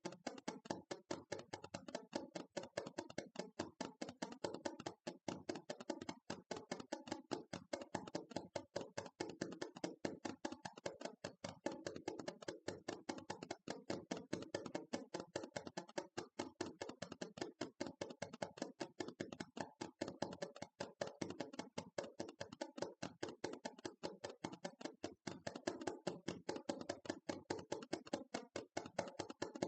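Rapid, continuous ASMR tapping, many light taps a second in an even stream.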